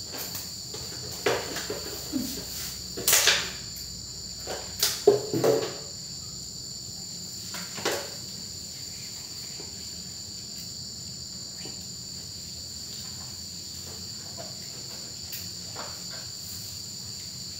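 A steady, high chirring of crickets runs throughout. In the first eight seconds about half a dozen sharp knocks and clinks of plates and bowls being handled stand out above it.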